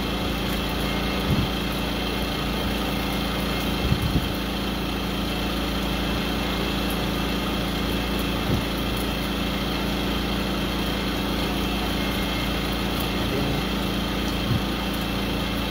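Steady, unchanging hum of a running motor, with a few light knocks and taps; the loudest knocks come about four seconds in.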